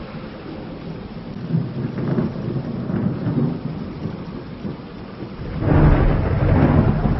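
Thunder rumbling over steady rain, the rumble swelling suddenly louder about five and a half seconds in.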